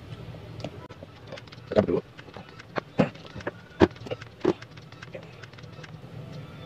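Handling noise while speaker leads are connected to a small amplifier board: scattered clicks and knocks, a handful of sharper ones between about two and five seconds in, over a faint low hum.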